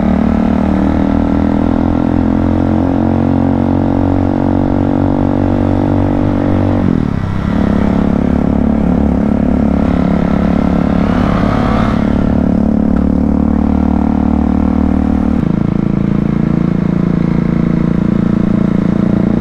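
Modified Bajaj Dominar's single-cylinder engine running loud and steady through its modified exhaust; its note dips and picks up again about seven seconds in, and shifts once more a little past fifteen seconds.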